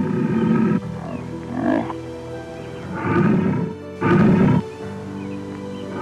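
Lion growling in four short, rough bursts over steady background music.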